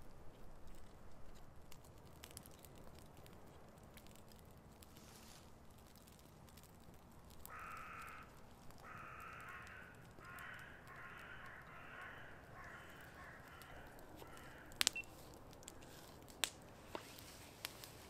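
A crow cawing about eight times in quick succession, each harsh call a little over half a second long, starting about halfway through. Near the end the small wood fire gives a few sharp cracks.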